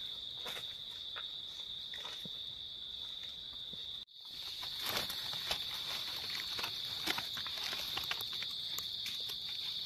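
Forest insects making a steady high buzz, with crunching footsteps on dry leaf litter. After a brief break about four seconds in, the insects are louder and close rustling and crackling of leaves and soil come from a red-capped mushroom being dug out by hand with a knife.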